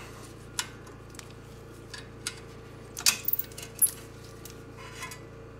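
Light metallic clinks and clicks of a socket and small hardware being handled and a socket fitted onto an air tool, with a quick cluster of sharp clinks about three seconds in. A faint steady hum lies underneath.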